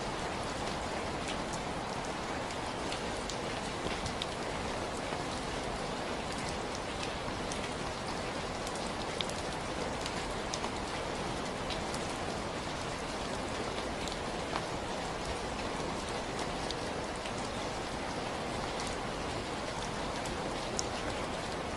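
Steady rainfall, an even hiss with many scattered drop ticks on a surface.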